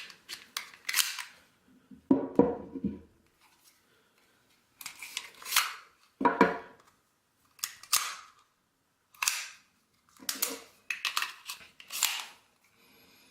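Sharp metallic clicks and clacks of Sig P232 pistols being handled, coming in a handful of separate clusters with short silences between them.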